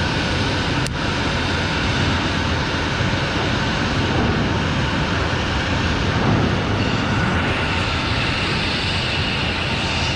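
Jet airliner engines running loudly and steadily, a dense rushing noise with faint whining tones. A higher-pitched whine comes in about two-thirds of the way through.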